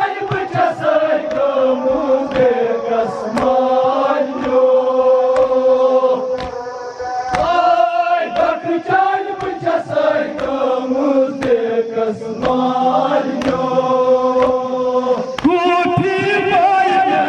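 Kashmiri noha, a Shia mourning chant: a lead reciter sings long held lines into a microphone while a group of men chant along. Sharp slaps, every second or so, come from their hands striking their chests in matam.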